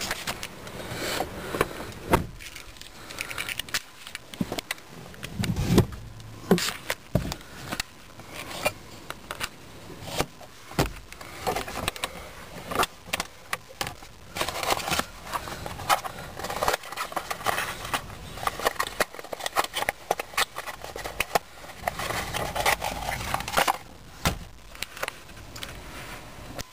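A string of irregular clicks, clunks and rattles of the car's plastic dashboard trim, glove box and controls being handled, with camera handling noise.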